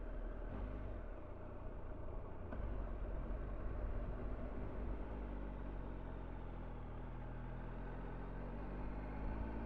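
Motorcycle engine running on the move under a low rumble of wind on the microphone; its pitch rises through the second half as the bike speeds up.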